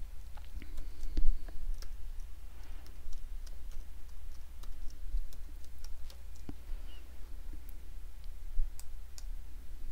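Computer keyboard typing: scattered, irregular key taps as a short code is entered, with one louder click near the end as the mouse button is pressed.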